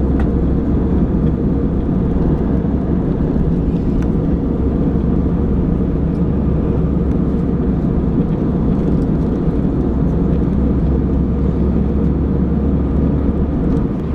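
Steady low rumble of airliner cabin noise inside an Airbus A321 in flight: engine and airflow noise, unchanging throughout.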